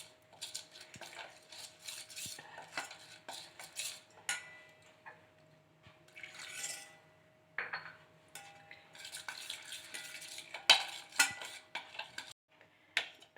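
A spoon stirring and scraping against a bowl with irregular clinks as wet spice masala paste is mixed.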